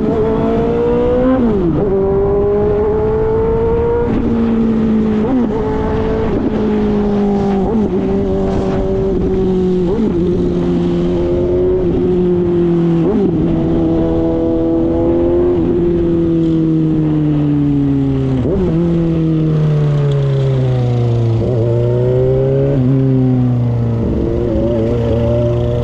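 Suzuki GSX-S750 inline-four running through an unbaffled JBK slip-on exhaust, loud, heard while riding. The engine note drifts gradually lower over the stretch, with quick sharp dips and pick-ups every couple of seconds as the throttle is rolled off and back on.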